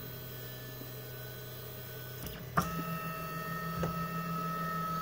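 Stepper motors of a homemade 3D printer whining at one steady pitch as the printer homes, starting abruptly about halfway in. Before that there is only a faint low hum.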